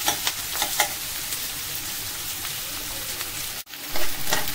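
Chopped onions sizzling in hot oil in a granite-coated nonstick kadai over a high flame, stirred with a metal spatula that scrapes the pan several times in the first second. The sound breaks off briefly about three and a half seconds in and comes back louder.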